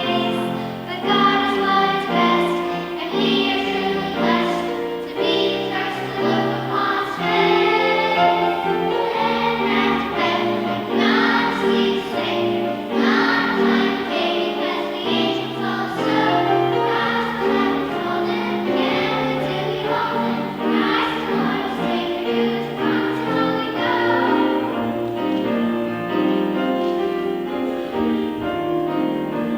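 Choir singing a song, with sustained notes changing every second or so.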